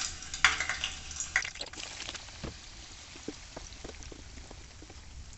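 Chopped onion, ginger and garlic sizzling in hot mustard oil in a nonstick kadai, with scattered small pops and clicks. The sizzle is loudest in the first second and a half, then settles to a steady, quieter hiss.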